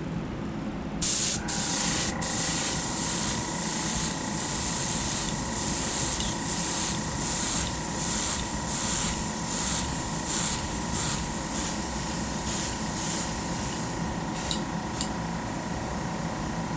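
Airbrush spraying paint in short hissing pulses, about two a second, over a steady high whine.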